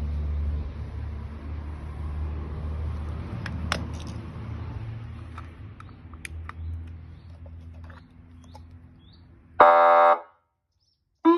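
Fire engine idling with a steady low rumble and a few light clicks, fading over several seconds, then one short loud horn-like blast about ten seconds in. A rising siren wail starts at the very end.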